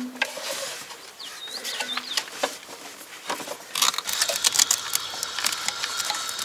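Hands handling the rubber hoses and plastic power steering fluid reservoir in a car's engine bay: a sharp click at the start, then rustling, scraping and small clicks that get busier about four seconds in.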